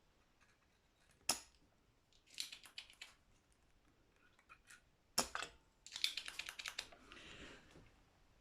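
Small hand tools clicking and tapping while the guitar's wiring is worked on: scattered sharp clicks, a quick run of about eight clicks around six seconds in, then a brief soft rustle.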